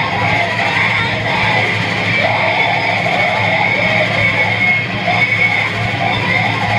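Harsh noise music played live: a loud, unbroken wall of distorted noise with a steady high whine over a wavering mid-range drone and a low hum.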